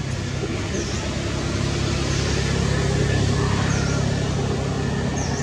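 A motor vehicle's engine running steadily nearby, swelling to its loudest about halfway through and easing a little after, with a few short, high chirps over it.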